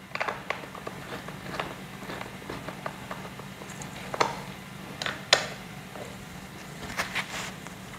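Scattered light clicks and knocks from bolts being tightened on a gaming chair during assembly, the sharpest about five seconds in, over a steady low hum.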